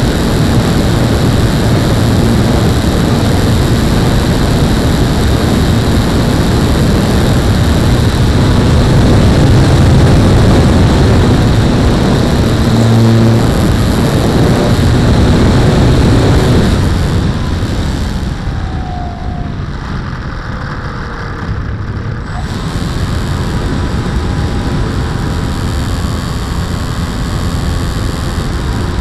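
An RC model SR22 trainer plane in flight, heard from its onboard action camera: a loud, steady rush of wind and propeller noise. About two-thirds of the way through the rush eases for several seconds, with a faint falling whine, then builds again.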